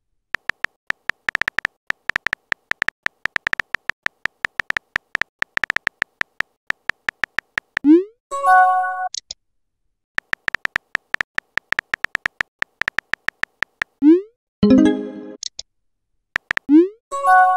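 Rapid keyboard-typing clicks from a texting-story chat app, in two long runs a couple of seconds apart, each followed by a short rising swoop and a brief chime as a message goes into the chat; near the end a short burst of clicks and another chime.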